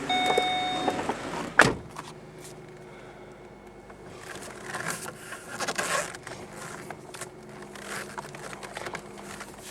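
Holden Commodore SV6's 3.6-litre V6 idling with a faint steady hum. A steady in-car chime stops about a second in, and a sharp thud follows just after. Several short whirring swells come later.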